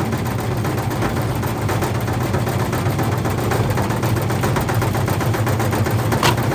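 Whirlpool washing machine running with heavy bricks in the drum: a steady motor hum under rapid, continuous banging of the bricks against the drum, with one harder bang about six seconds in.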